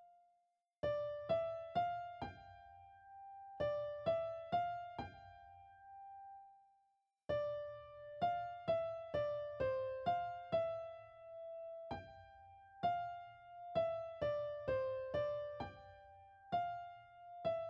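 Background music: a simple melody of single struck notes, each ringing and fading away, played in short phrases separated by brief pauses.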